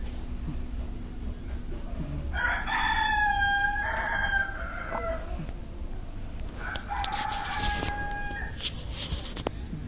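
A rooster crowing twice: a long call about two seconds in that steps down in pitch, and a second, flatter call about seven seconds in.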